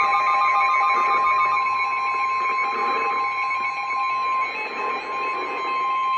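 Emergency alert warning tone: a loud, steady single-pitched tone of about 1 kHz, the attention signal that comes before a severe weather warning is read. A faster, pulsing electronic beep at other pitches sounds alongside it, part of it stopping about a second and a half in.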